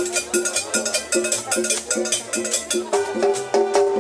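Live dance combo playing upbeat tropical dance music: quick, steady percussion with cowbell-like hits over a stepping bass line. About three seconds in, a line of held melody notes enters on top.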